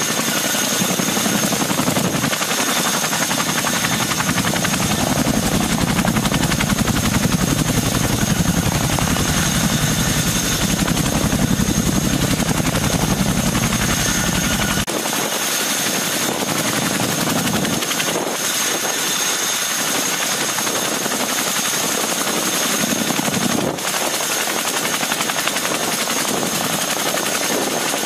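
CH-47 Chinook helicopter running on the ground: its twin tandem rotors turning with a fast rhythmic beat and its two turboshaft engines giving a steady high whine. The deepest rumble drops away about halfway through.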